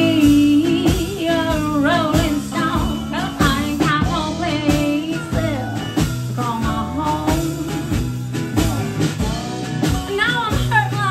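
Live band playing a blues-rock song: strummed acoustic guitar, lap steel guitar and drum kit over a steady beat, with a sliding melody line on top.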